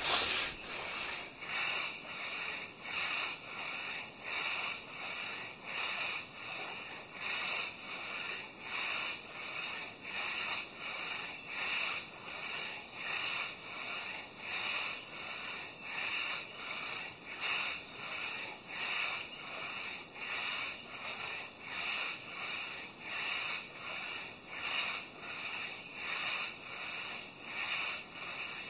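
Hand saw cutting through a maple log, each push and pull rasping through the wood in a steady, even rhythm.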